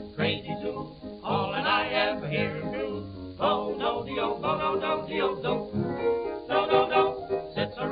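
1920s dance-band jazz record playing, with a singing voice over the band.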